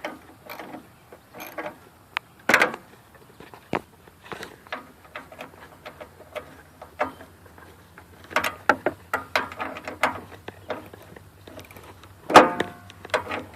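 Socket ratchet clicking in short runs as the hood latch's bolts are tightened down, with scattered metallic clicks and knocks. A loud, ringing metal clank about twelve seconds in.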